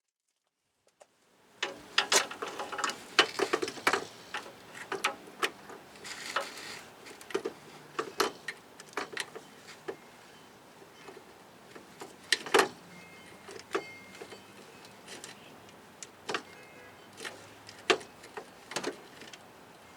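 Metal hand tools and sockets clinking and clacking in irregular sharp knocks, starting about two seconds in.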